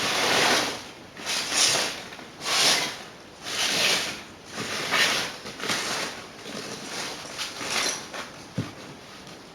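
Rustling and scraping of loose debris being handled and cleared up by hand, in repeated bursts about once a second, fading out near the end.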